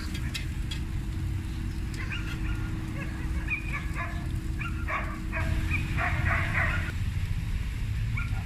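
A dog barking in a quick series of short, high barks from about two seconds in until near the end, over a steady low rumble. In the first second there are a few sharp metal clicks as a knife taps the flat-top griddle.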